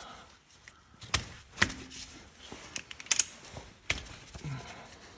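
Hand tools clanking against metal: a few separate sharp knocks and taps, one with a brief metallic ring. This happens while a hex (Allen) bit is fitted to the differential's refill plug to loosen it.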